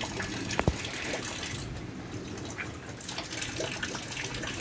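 Rainwater pouring off a roof into a plastic barrel, a steady splashing stream, with two sharp knocks about half a second in.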